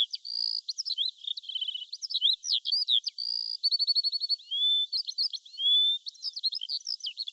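Songbird singing, a high, thin run of varied chirps, rapid trills and short rising whistles, used as a birdsong sound effect. It stops abruptly at the end.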